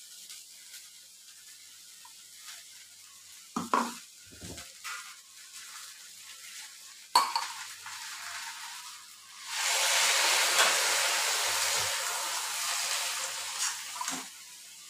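Metal spatula knocking and scraping in a kadai of frying cluster beans, with a sharp knock a little after the middle. About ten seconds in, a loud sizzle starts as freshly added ground coconut paste is stirred into the hot pan, easing off near the end.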